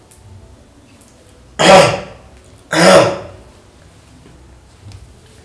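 A man clearing his throat loudly twice, in two short coughs about a second apart.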